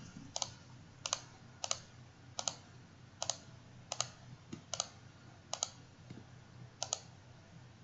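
A computer mouse clicked about nine times at a fairly even pace, each click a quick press-and-release pair.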